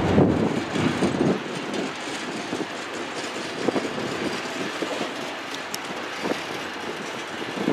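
Covered hopper cars of a freight train rolling past, with occasional wheel clacks over the rail joints. The heavy rumble drops off sharply about a second and a half in, leaving a quieter steady rolling noise.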